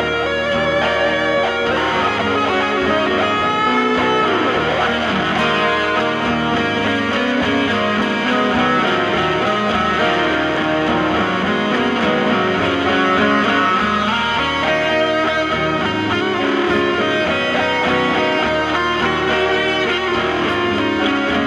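Steel-string acoustic guitar played solo in an instrumental passage: continuous picked and strummed chords with sustained, ringing notes.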